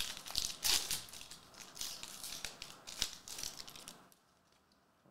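Foil trading-card pack wrapper crinkling and tearing as it is opened by hand, with cards rubbing against each other; it stops about four seconds in.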